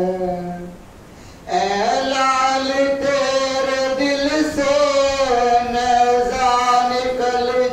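A man singing an unaccompanied noha (Shia lament), drawing out long held notes. The voice stops briefly about a second in, then comes back on a long, wavering melismatic line.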